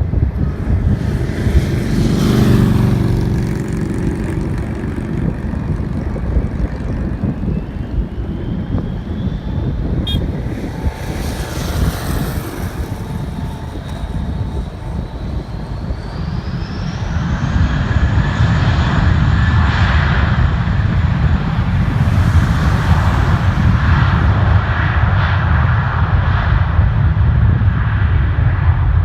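Jet airliner engines running with a deep rumble and a thin turbine whine that climbs in pitch twice; the rumble grows louder from about halfway on.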